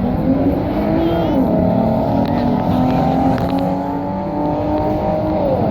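Car engine running hard down the drag strip at high revs, its pitch climbing slowly and then dropping sharply about a second in and again near the end.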